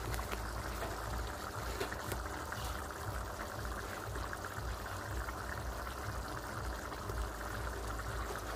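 Bolognese sauce simmering in a frying pan on a gas hob: a steady soft bubbling and spluttering over a low constant rumble, the sauce reducing.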